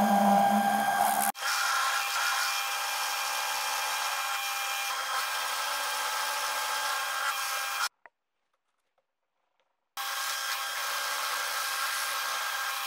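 Milling machine running with an end mill roughing a slot in round stock held in a dividing head: a steady cutting whine with several fixed high tones. The sound drops out to silence for about two seconds in the second half, then returns unchanged.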